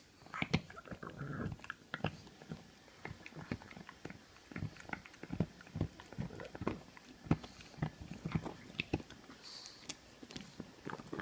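A pug gnawing on a red chew toy: irregular chomps and sharp clicks of teeth on the toy, several a second, uneven in strength.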